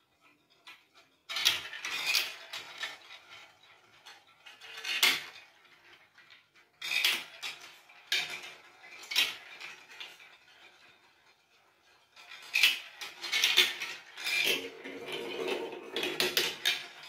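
Plastic balls rolling and clacking through a plastic building-block marble run, dropping through track pieces and swirling around funnels. The clatter comes in several bursts, the first about a second in, and thickens into a steadier rolling rattle near the end.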